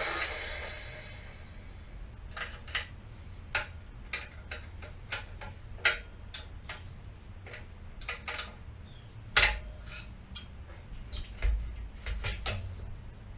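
Irregular metallic clinks and clicks of a wrench and metal parts as an axle nut is worked on a BMX cruiser wheel, an axle nut with damaged threads. A few sharper knocks stand out, the loudest about two thirds of the way in.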